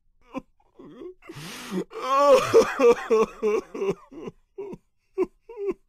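A person's voice making wordless vocal sounds: a breathy rasp about a second in, then a string of short groan-like cries that bend up and down in pitch.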